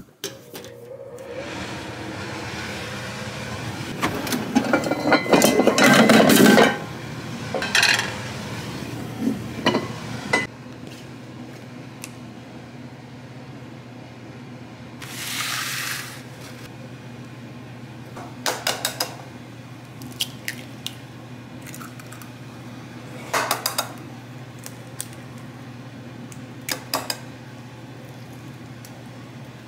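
Breakfast being made at a kitchen counter: water runs for about six seconds and stops abruptly, then a frying pan and utensils clink and knock now and then, and near the end eggs are cracked into a nonstick frying pan, over a steady low hum.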